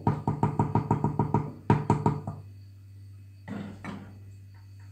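A spoon rapidly tapped against the rim of a stainless steel cooking pot, about fifteen quick knocks in two and a half seconds with the pot ringing, then a couple of softer clinks near the end.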